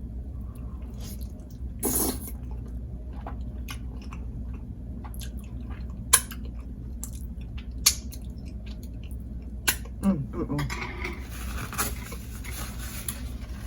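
Close-up mouth sounds of a person eating meat and egusi soup by hand: chewing and wet lip-smacking, with several sharp smacks and a short hum of the voice about ten seconds in.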